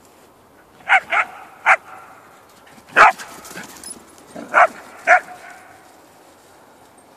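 A dog barking during play: six short barks in loose pairs, the loudest about three seconds in.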